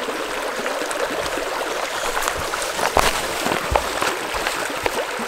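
Shallow river running over a rocky riffle: a steady rushing babble, with a few sharper ticks in it, the strongest about three seconds in.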